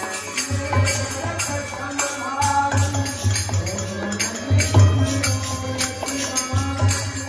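Devotional bhajan music: a two-headed barrel drum played by hand and a harmonium, with hand cymbals clashing on a steady beat about twice a second. Voices chant along.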